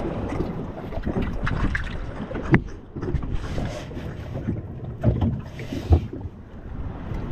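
Wind buffeting the microphone over the sea noise around a small open wooden fishing boat. There is a sharp knock about two and a half seconds in and two dull thumps a little after five seconds.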